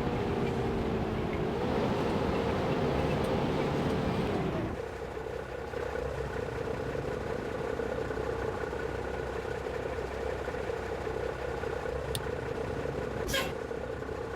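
Bus engine running, its note dropping about five seconds in to a steady idle. A brief sharp noise comes near the end.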